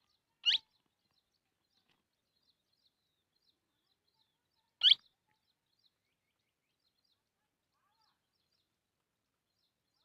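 A young parakeet giving two short, shrill calls about four seconds apart, with faint chirps in between.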